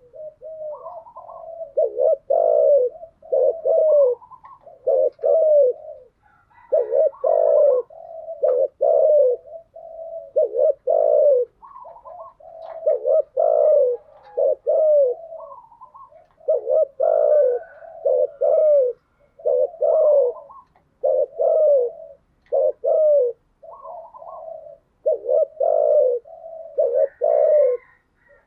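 Spotted doves cooing over and over in short phrases of low, repeated notes: the rapid courtship coos and calling coos used as a lure to stir up decoy doves.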